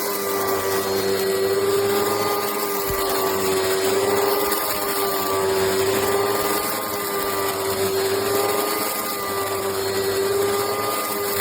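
Oreck XL upright vacuum cleaner running steadily: a motor whine over a hiss of rushing air, its pitch wavering slightly.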